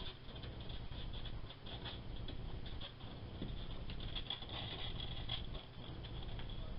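Juvenile Natterer's bat making faint, rapid scratchy clicks and rustles, busiest a little past the middle, over a low steady hum.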